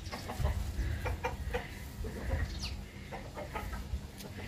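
Chickens clucking: short, scattered clucks and a few quick chirps over a low rumble.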